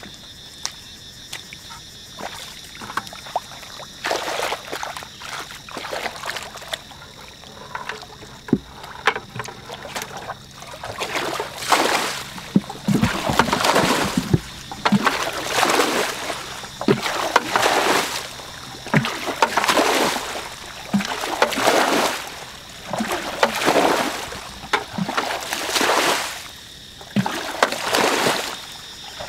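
Water being bailed with a plastic bucket in a flooded rice paddy: a regular run of splashing scoop-and-pour sloshes, about one every second and a half, through the second half, as a dammed pool is emptied. Before that, small wet clicks and squelches of hands working mud.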